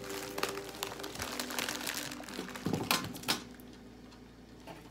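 Handling sounds of a metal toolbox being moved and turned: a run of small clicks and knocks, with a few louder knocks about three seconds in, then quieter.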